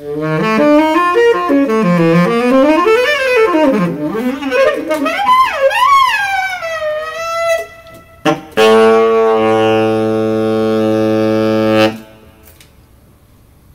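Several saxophones playing together in gliding, weaving lines that slide up and down in pitch. A short note follows, then a long steady held chord that cuts off suddenly about twelve seconds in.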